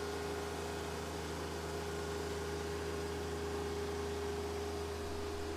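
RK24 compact tractor's three-cylinder diesel engine running steadily, a low, even hum with a constant mid-pitched tone over it.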